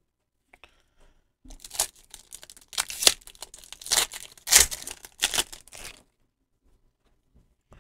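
Pokémon trading-card booster pack's foil wrapper torn open by hand: a series of sharp rips and crinkling crackles lasting about four seconds.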